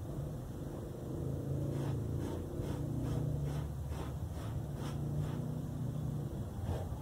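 Rhythmic scraping strokes, about two to three a second starting about two seconds in, as expanded polystyrene foam is carved and shaped by hand, over a steady low rumble.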